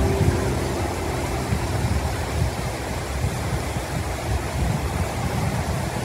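Whitewater rapids of Duchesnay Creek rushing steadily, with a low, uneven rumble underneath.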